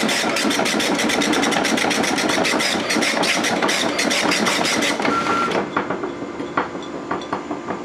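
Okidata Pacemark 3410 9-pin dot matrix printer printing in high-speed draft mode: a loud, rapid, rhythmic chatter of the print head. It stops about five and a half seconds in, leaving scattered single clicks.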